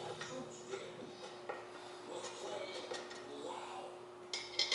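Metal drill-press parts and bolts being handled during assembly: scattered light clinks and knocks, with a louder cluster of clinks near the end, over a faint steady hum.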